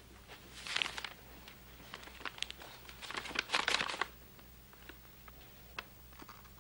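Paper envelope rustling and crinkling as it is handled and opened by hand, in short bursts: one about a second in and a longer spell from about three to four seconds in, with small paper clicks between.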